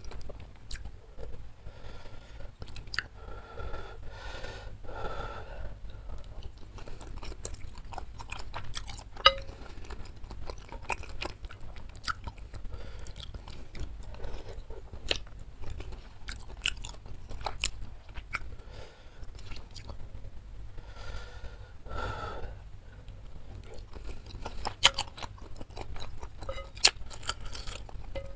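Close-miked eating: chewing instant noodles and chewy tapioca meatballs (bakso aci) in spicy soup, with slurps of noodles and a few sharp clicks of wooden chopsticks against the ceramic bowl.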